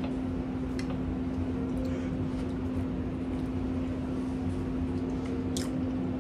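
A steady low hum with one constant tone, and a few faint clicks.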